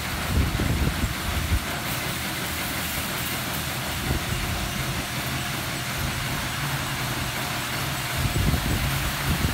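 Specialty Equipment Futura Millennium touchless car wash blasting high-pressure water spray over a car: a steady hiss of spray with a machine hum underneath. Low rumbling surges come about half a second in and again near the end.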